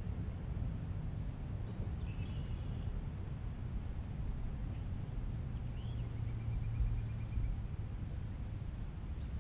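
Outdoor ambience: a steady low rumble and a steady high hiss, with a few short bird chirps and one brief trill about six seconds in.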